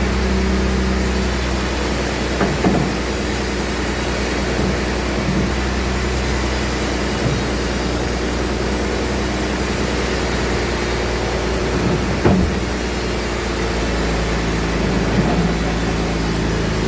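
Sawmill band saw running steadily with a constant low motor hum, with a few short knocks about two and a half, twelve and fifteen seconds in.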